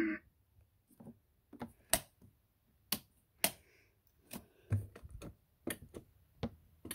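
Irregular sharp plastic clicks and taps, a couple a second with short gaps, from hands working the buttons and plastic panels of a kids' battery ride-on toy car.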